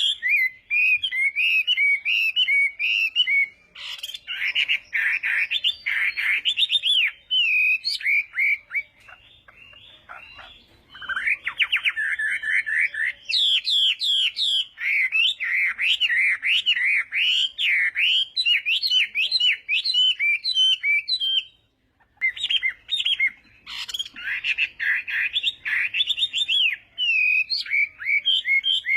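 Chinese hwamei (melodious laughingthrush) singing its loud, varied song: fast runs of repeated whistled notes and rattling trills, with a quiet lull about nine seconds in and a short break just past twenty seconds.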